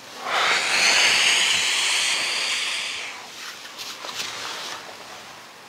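A long, hissing breath out, lasting about three seconds and then fading, as a man strains to pull his straightened leg towards his face with a stretching strap.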